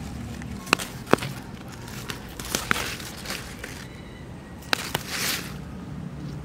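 Dry leaf litter and plant stems crackling and rustling, with a handful of sharp snaps, as wild arum (kharkol) plants are handled and picked by hand. A short burst of rustling comes about five seconds in.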